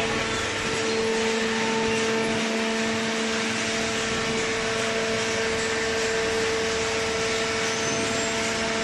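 Hydraulic cardboard baler's motor and pump running with a steady hum over an even whirring noise.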